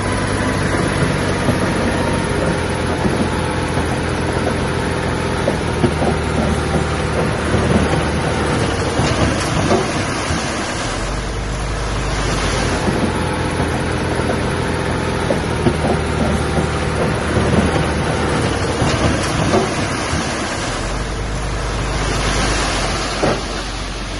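Komatsu D20A bulldozer's diesel engine running steadily under work, with frequent knocks and rattles over it. Its low drone swells twice, about halfway through and again near the end.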